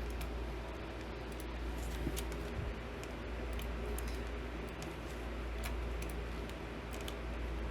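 A dozen or so light, scattered clicks of a computer mouse while names are copied and pasted, over a steady low electrical hum.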